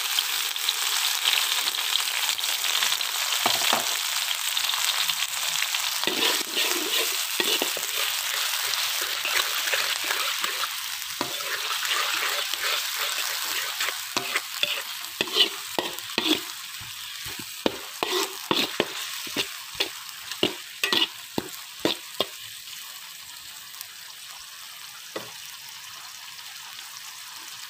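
Ground spice paste sizzling in hot oil in a wok as it is stirred with a spatula. The sizzle is loud at first and dies down after about twelve seconds, giving way to many sharp scrapes and taps of the spatula against the wok.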